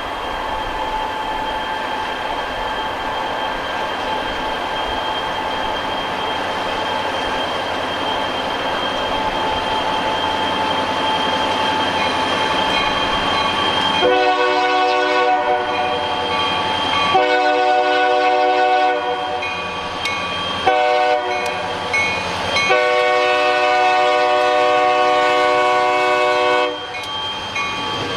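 EMD SD40 diesel freight locomotive approaching, its engine running and growing louder. About halfway through it sounds its air horn in the grade-crossing pattern: long, long, short, long, with the last blast held about four seconds.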